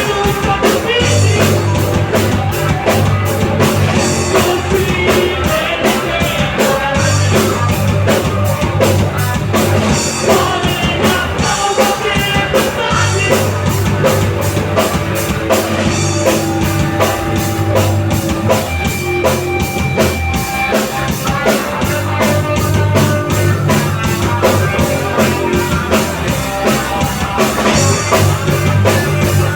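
Rock band playing live: a drum kit beating a steady driving rhythm under bass and electric guitars, with the bass holding long low notes in blocks of about two seconds.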